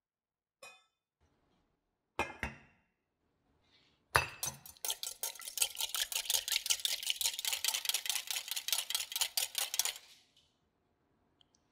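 Spring whisk beating egg white in a glass bowl over a pot of hot water, its wire coil clicking rapidly against the glass at several strokes a second for about six seconds before stopping. First comes a brief ringing clink and two knocks of glass on the pot.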